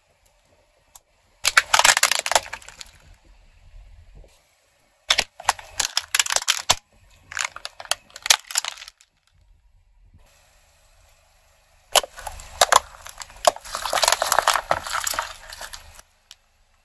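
Plastic toys and a drink can cracking and crunching as a car tyre rolls over them. The sound comes in four bursts of sharp cracks, each one to four seconds long, and the longest comes near the end.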